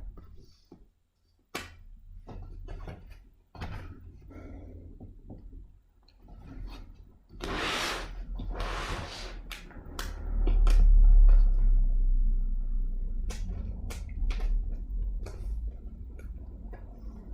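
Laptop packaging being handled: scattered clicks and knocks, two bursts of rustling about halfway through, then a low rumble of handling noise.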